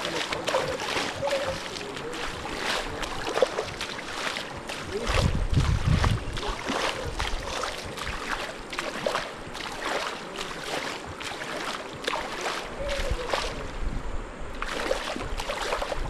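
River water rushing and splashing close by, full of many small sharp splashes, with low rumbling gusts on the microphone about five seconds in and again near the end.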